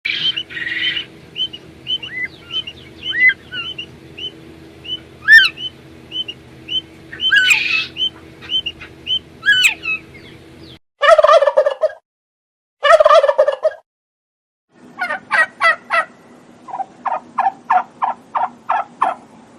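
Bird calls in three separate stretches. First come many short high calls over a steady low hum for about ten seconds. Then two harsh calls about a second long each. Last, a quick even run of about a dozen short calls.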